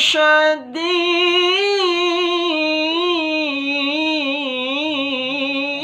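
Melodic Quran recitation (tilawah): a single reciter sustains a long, ornamented melisma on one drawn-out syllable, the pitch wavering and turning in trills. A brief break with a short sharp sound comes right at the start.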